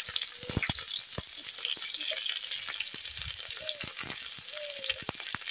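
Sliced onions sizzling in hot oil in a kadai, a steady hiss with many sharp crackling pops.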